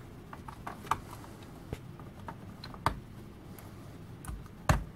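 Hands handling cables and parts inside a desktop PC case: scattered light clicks and taps of plastic and metal, with a louder knock near the end.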